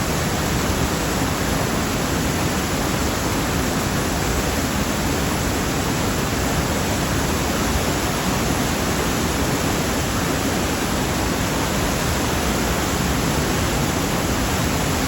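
Steady, loud rushing of a river in flood, an even roar of fast-flowing water with no breaks.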